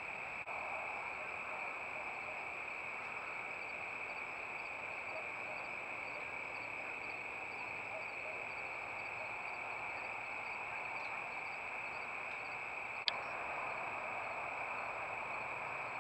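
Steady night insect chorus, a continuous high chirring, with a fainter ticking insect call above it, about two ticks a second, through the middle. A single sharp click comes about thirteen seconds in.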